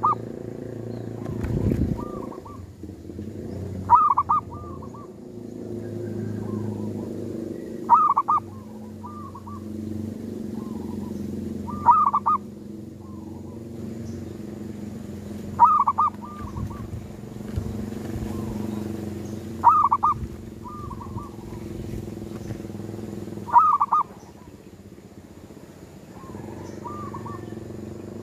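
Zebra dove (perkutut) cooing its song, a phrase repeated about every four seconds: each opens with a loud, clear coo followed by a few softer coos. A steady low hum runs underneath.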